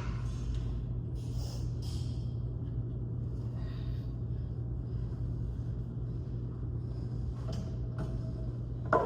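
Gym room ambience with a steady low hum. Near the end comes one sharp knock with a short ring.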